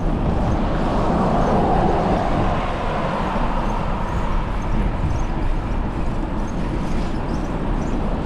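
Steady wind rush on the microphone and road noise while riding a bicycle along a road. The noise is a little fuller for the first couple of seconds, then eases.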